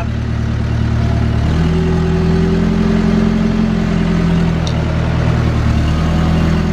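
JCB backhoe loader's diesel engine running, stepping up in revs about a second and a half in and holding steady, as the machine tries to drive out of soft, wet ground it is sinking into.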